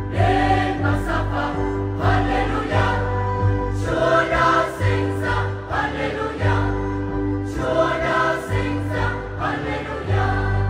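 Church choir singing a Vietnamese Christmas hymn in several voice parts, with instrumental accompaniment holding a deep, steady bass line under sustained chords.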